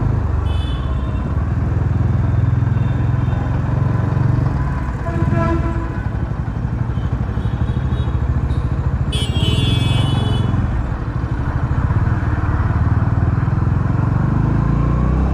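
Bajaj Dominar 400's single-cylinder engine running under way in slow traffic, a steady low rumble that rises and falls with the throttle. A shrill high tone cuts in for about a second and a half just past the middle.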